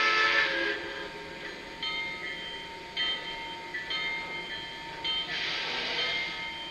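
Model train sound-system effects: a loud hiss with steady whistle-like tones at the start and again near the end, and shorter blasts of steady tones in between.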